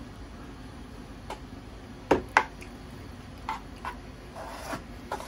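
Wooden spoon scraping and clicking against a bowl while scooping up curry and rice. Several short clicks, the two loudest close together about two seconds in.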